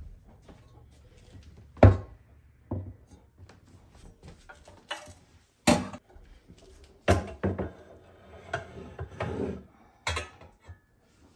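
Pots and pans being set down and stacked in a towel-lined kitchen cabinet: a string of sharp clunks and clinks, about half a dozen, with scuffing and rustling between them.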